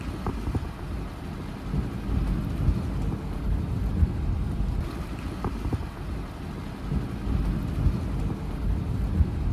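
Wind buffeting the phone's microphone from a moving car with the window open, an uneven low rumble over the car's road noise.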